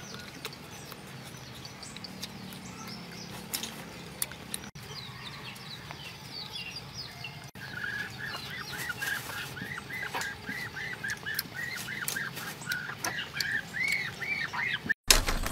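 Birds chirping: a quick run of short rise-and-fall calls that gets busier and louder from about halfway through, with scattered faint clicks.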